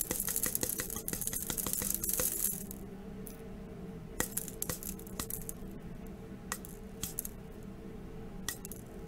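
Magnesium flakes poured from a plastic bottle into a plastic weighing boat on an electronic balance: a dense patter of tiny clicks for the first two and a half seconds, then a few single pieces clicking in now and then, over a steady low hum.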